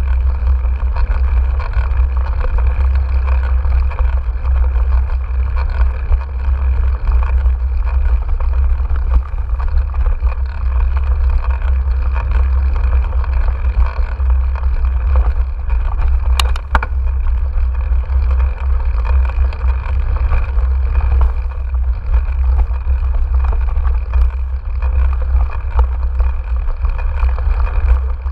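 Riding noise from a mountain bike on a dirt trail, picked up by a GoPro action camera's microphone: a steady heavy low rumble of wind and tyres on dirt, with the bike rattling over the ground. There is a single sharp click about sixteen seconds in.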